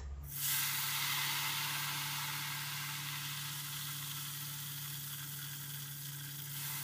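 Ghewar batter frying in a stainless-steel pot of hot oil, sizzling loudly as it foams up. The sizzle starts suddenly just after the start, eases off slowly, and swells again near the end.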